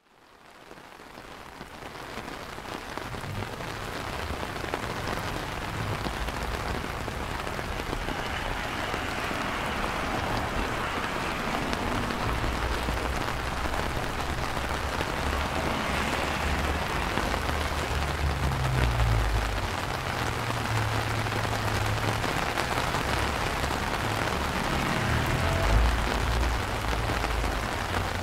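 Steady rain falling on wet pavement and street, fading in over the first few seconds, with intermittent low rumbles underneath.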